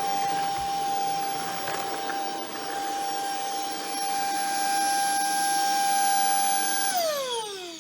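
Shark Ion F80 cordless vacuum running with a steady high motor whine over airflow hiss. About seven seconds in it is switched off, and the whine falls in pitch as the motor spins down.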